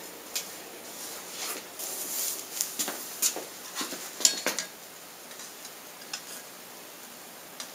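Light metallic clinks and clatter of steel tongs and hand tools against the anvil and the steel bar being worked, a quick cluster in the first four and a half seconds with the loudest clink about four seconds in.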